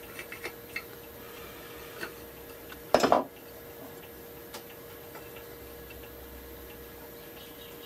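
Hand woodworking tools clicking and tapping against the wooden body of a plane being made, with one louder clattering knock about three seconds in.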